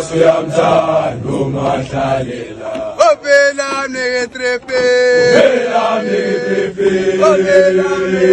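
A large group of schoolboys singing a gwijo, a Xhosa group chant song, in full voice. Short rhythmic chanted phrases give way about three seconds in to long notes held together in harmony.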